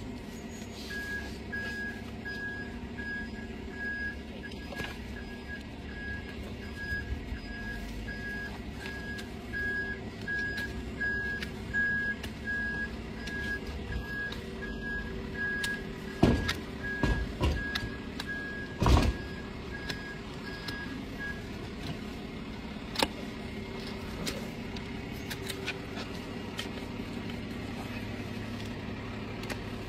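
A vehicle's reversing alarm beeping evenly, about one and a half beeps a second, over a low engine hum, stopping about two-thirds of the way through. A few sharp knocks come shortly after the middle, the loudest just before the beeping ends.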